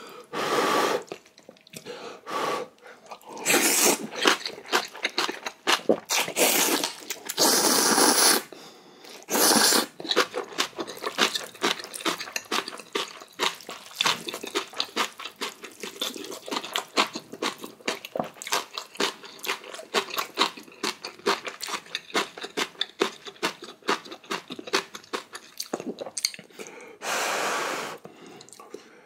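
Ramen noodles slurped in several long pulls of about a second each, with rapid wet chewing and mouth clicks in between. A long stretch of chewing follows, and there is one more long slurp near the end.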